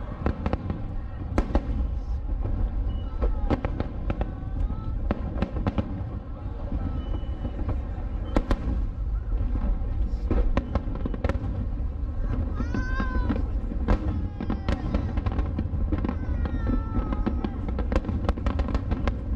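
Aerial firework shells bursting in quick succession: many sharp bangs over a continuous low rumble.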